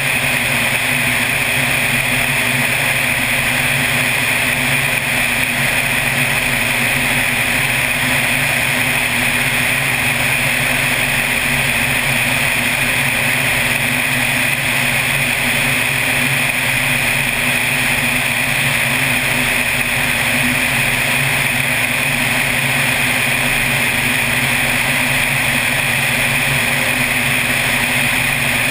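Floatplane engine and propeller droning steadily in flight, mixed with a steady rush of airflow over the outside-mounted camera.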